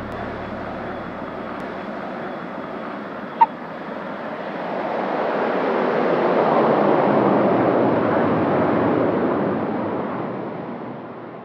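Let L-410 NG twin-turboprop's engines and propellers running at takeoff power as it rolls away down the runway, a broad rushing sound that swells about halfway through and then fades away. A single sharp click sounds about three and a half seconds in.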